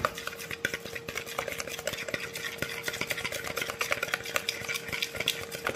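A fork briskly stirring olive oil and spices in a plastic bowl: a fast, irregular run of clicks and scrapes against the bowl. A low knock at the very start, with a faint steady hum underneath.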